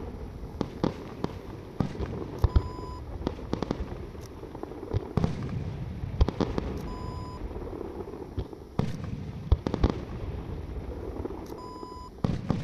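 Fireworks display: irregular sharp bangs and crackles of shells bursting over a steady low rumble. A short electronic beep comes three times, about every four and a half seconds.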